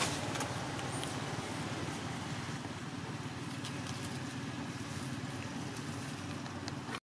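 Steady low rumbling outdoor background noise with a few faint ticks, cutting off abruptly at the very end.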